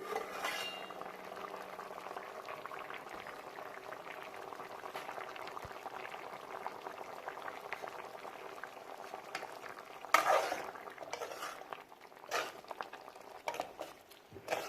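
Chicken gravy bubbling and crackling in a pot. About ten seconds in, a spoon stirs it with several louder strokes against the pot.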